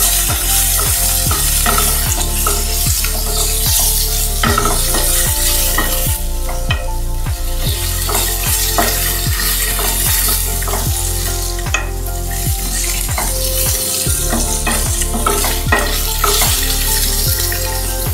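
Boiled elephant apple pieces frying in hot mustard oil in a kadai, sizzling steadily while a wooden spatula stirs and turns them, scraping against the pan again and again.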